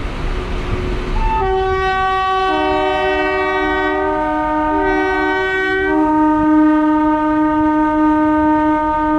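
Electric train's horn sounding one long two-note blast, starting about a second and a half in over the rumble of the moving train. The higher note breaks off briefly midway and drops out about six seconds in, while the lower note holds on.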